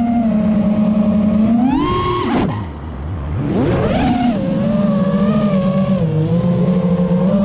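Racing quadcopter's brushless motors and propellers whining under throttle. The pitch climbs about two seconds in, then drops sharply as the throttle is cut for a moment, and rises again about a second later as power comes back on.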